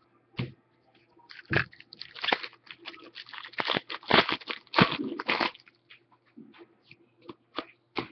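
Foil wrapper of a hockey card pack being torn open and crumpled by hand. There is a dense run of crackling rustles for about four seconds, then a few light clicks and rustles near the end.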